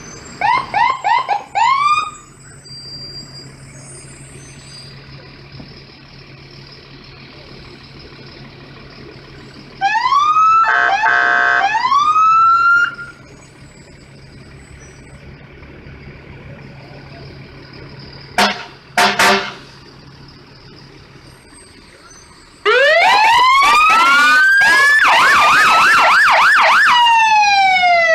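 Fire engine sirens as the trucks pass one after another. First come several quick rising whoops, then a siren winds up under a steady blaring horn, then two short loud blasts. Near the end a very loud siren rises in a slow wail, breaks into a fast yelp, and sweeps down.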